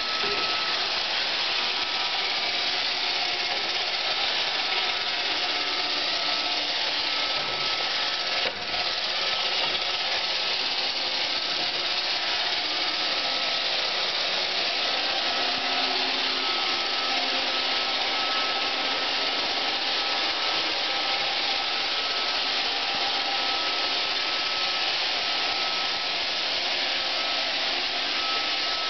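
iRobot Roomba 520 robot vacuum running: a steady whir of its vacuum motor and brushes, with a faint high whine, and one brief knock about eight and a half seconds in.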